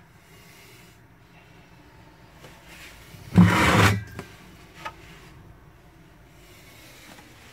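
A sudden loud scraping rub lasting under a second, about three and a half seconds in, followed by a couple of faint clicks, over a low steady background.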